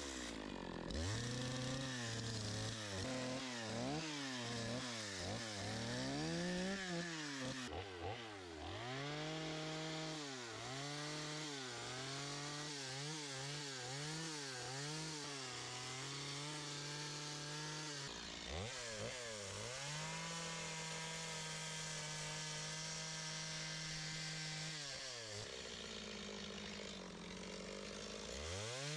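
Two-stroke chainsaw cutting wood, revving up and down over and over. It drops back to idle briefly three times and for a few seconds near the end.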